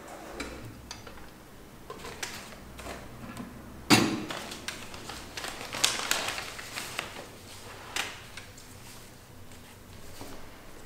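Things being handled on a desk: light clicks, one sharp knock about four seconds in, then paper rustling as notebook pages are turned, and another click near the end.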